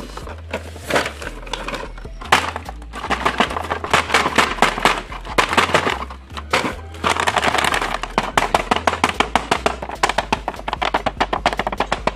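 Cardboard action-figure boxes handled, their clear plastic windows crinkling and crackling in quick runs of clicks under the fingers, over background music with a bass line.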